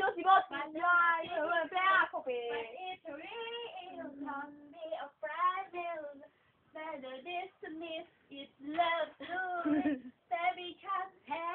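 A high-pitched voice singing in short phrases, with brief pauses between them.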